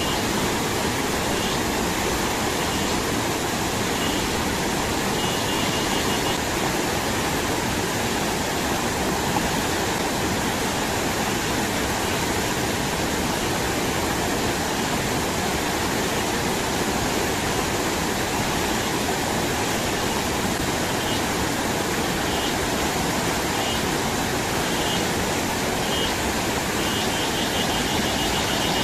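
Steady rushing of a flood-swollen, muddy river pouring over rock rapids. Faint short high chirps come through now and then, in a longer run near the end.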